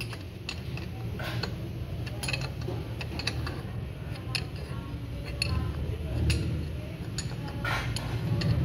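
Metal clicks and creaks from a gear puller being tightened against a car air-conditioning compressor's clutch plate as the plate works loose on its shaft, about one click a second.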